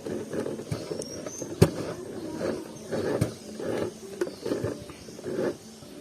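Small portable sewing machine stitching through thick fabric, its motor humming in short stop-start runs, with a sharp click about a second and a half in.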